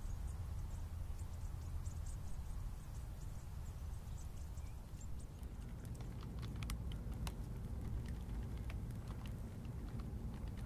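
Low steady rumble. From about halfway in, a fire crackles with scattered sharp pops.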